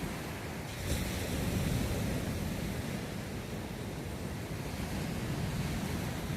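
Atlantic Ocean surf breaking and washing on the beach: a steady rush of waves that swells a little about a second in.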